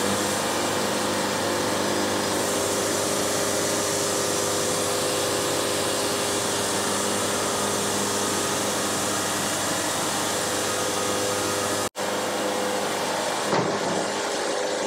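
Wood-Mizer LT70 diesel-powered bandsaw mill cutting through a log: a steady hiss of the band blade in the wood over the engine's steady hum. This is the opening cut that skims a flat face on a twisted log. The sound drops out for an instant about twelve seconds in, and its high hiss thins near the end.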